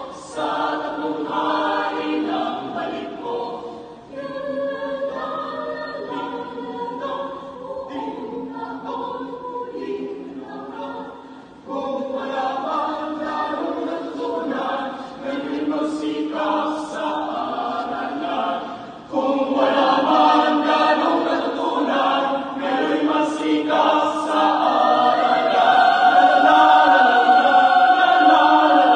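Mixed choir singing a cappella in several parts, growing louder in steps about twelve and nineteen seconds in. It ends on its loudest passage, a long held chord.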